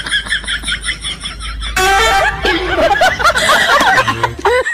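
Laughter and voices over background music. First comes a quick repeated snickering, about four beats a second, then from about two seconds in a louder mix of several overlapping voices.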